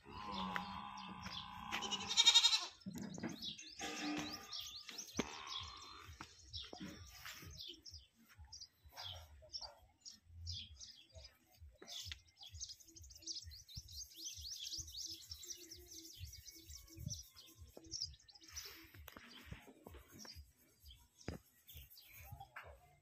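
Farmyard sounds: a bleating animal call in the first few seconds, loudest around two seconds in, then small birds chirping in short high notes through the middle, over soft repeated knocks.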